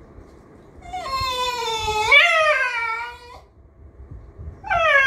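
Miniature schnauzer 'talking': a long, drawn-out whining moan that bends up in pitch partway through and then falls away, followed near the end by a second one that starts high and slides down.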